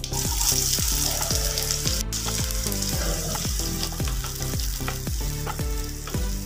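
Chopped onion sizzling in hot sesame oil, the sizzle starting suddenly as the onion goes into the pan, while it is stirred with a wooden spatula.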